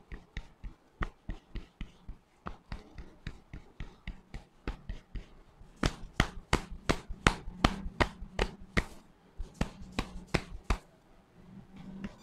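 Hands patting and slapping rhythmically on a person's head in a head massage, about three to four pats a second, getting louder about six seconds in and thinning out near the end.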